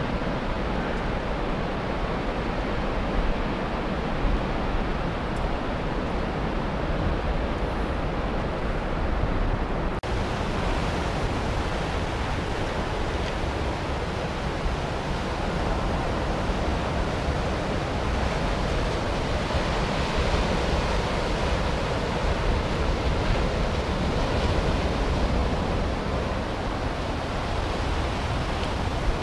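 Steady rush of Baltic Sea surf breaking on the shore, mixed with wind. The sound turns brighter and hissier about ten seconds in.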